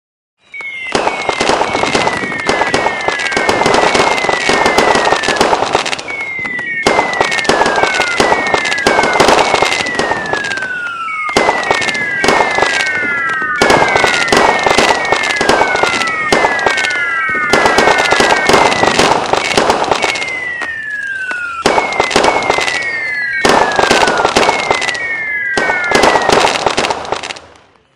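Fireworks going off in a dense barrage of crackles and bangs, with groups of whistles that fall in pitch every few seconds. It starts about half a second in and fades out near the end.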